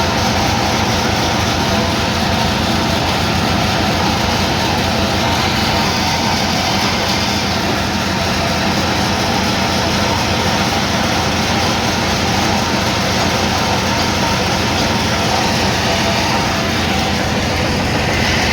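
Engine-driven sawmill running steadily while its saw cuts a log, a low pulsing engine drone under a dense sawing hiss that grows brighter for a few seconds midway and again near the end.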